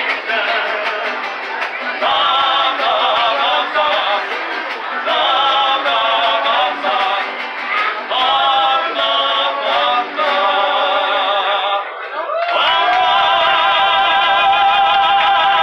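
Live mariachi singing: a man's voice with a wide vibrato, sung in phrases and ending on a long held note.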